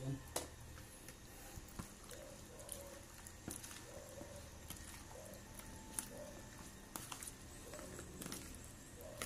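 Faint wet squishing and soft clicks of raw tamban fish being squeezed and tossed by hand in vinegar, chili and cucumber in a plastic tub.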